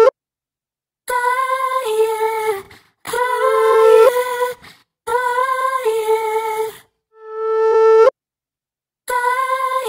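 Music: a single sustained, humming melodic line played in short phrases of one to two seconds with silent gaps between them, each phrase stepping down between two notes. Near the end, a note swells up and cuts off abruptly.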